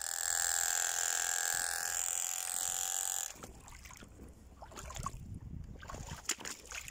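A small battery toy's electric motor whining steadily at a high pitch, cutting off suddenly about three seconds in; after it, quieter handling noise with a few knocks.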